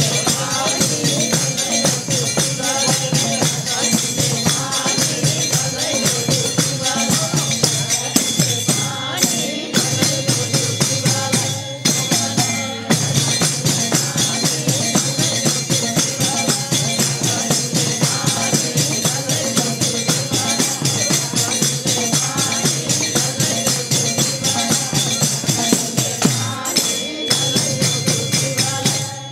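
Hindu devotional bhajan music with a fast, steady jingling percussion rhythm, tambourine-like, under a wavering melody line, dipping briefly about 9, 12 and 27 seconds in.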